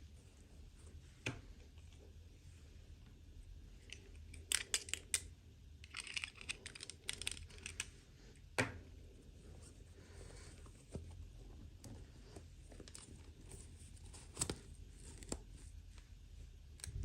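Hands unboxing small toys: scattered clicks and taps of plastic pieces and packaging, with a sharp cluster about five seconds in and a stretch of crinkling or tearing packaging just after.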